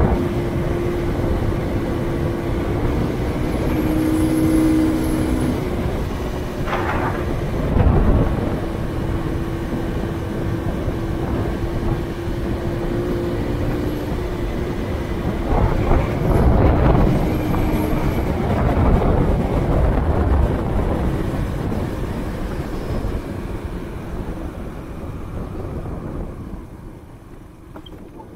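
Honda C90 single-cylinder four-stroke engine of a Dax motorcycle running steadily under way, with wind rushing over the microphone and road noise. There are louder rushes about eight seconds in and again around sixteen seconds, and the sound dies down near the end.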